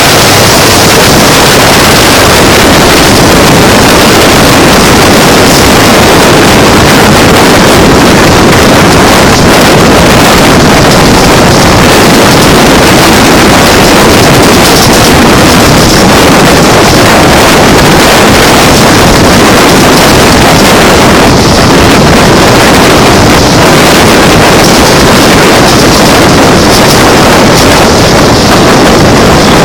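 Loud, steady rush of wind on the microphone mixed with the running noise of two trains travelling side by side, an express passing an EMU suburban train.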